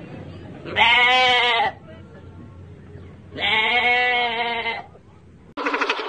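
Sheep bleating: two long bleats, each about a second, with a wavering pitch. Just before the end a different, noisier sound cuts in abruptly.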